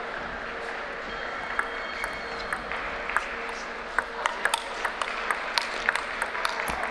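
Table tennis rally: the ball clicking sharply off the rackets and the table, a few scattered hits at first, then a quick back-and-forth exchange from about four seconds in.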